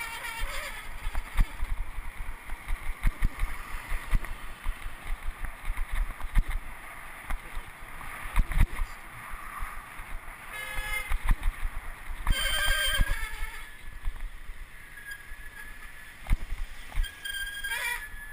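Wind buffeting and rumbling on the microphone of a camera riding along on a moving bicycle, with road and traffic noise and frequent thumps from bumps. Brief high-pitched squeals sound about eleven seconds in, again a couple of seconds later, and just before the end.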